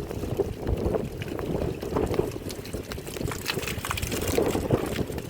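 Liquid sloshing and splashing in irregular surges, with short knocks mixed in.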